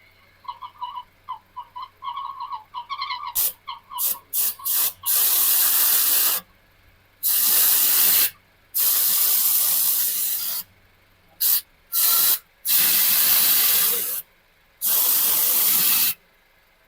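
Aerosol spray can hissing in bursts, first several short squirts about three seconds in, then longer sprays of one to two seconds each, most likely the spray used to cure the bad noise. Before the spraying, a rapid high-pitched chirping squeak repeats many times a second.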